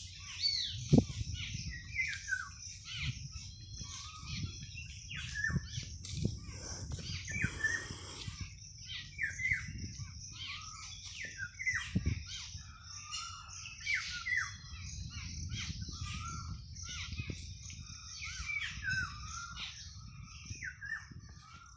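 A busy chorus of birds: many short chirps and falling whistled notes overlap throughout. Underneath there is a low rumble with a few dull thumps, the loudest about a second in.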